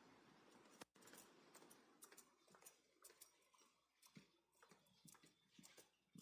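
Near silence: quiet room tone with faint, irregular small clicks scattered throughout.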